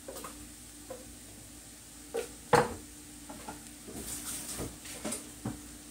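Kitchen handling clatter: scattered light clinks and knocks of dishes and utensils, the loudest a sharp knock about two and a half seconds in, over a faint steady hum.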